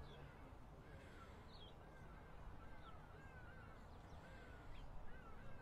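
Faint outdoor quiet with a bird calling in a series of short, thin rising-and-falling chirps, starting about a second and a half in.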